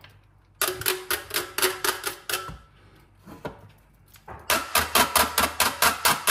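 Kitchen knife chopping on a cutting board in quick, even strokes, cutting up orange peel for zest. There are two runs: one about half a second in that stops after about two seconds, and a louder one from about four and a half seconds in, at about four strokes a second.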